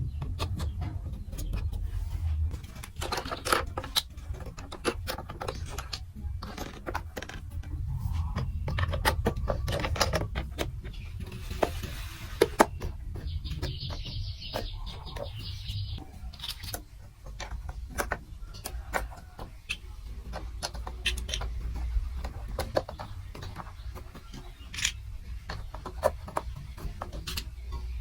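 Plastic marble-run building pieces clicking and knocking as they are handled and fitted together, many small sharp clicks over a low rumble of handling.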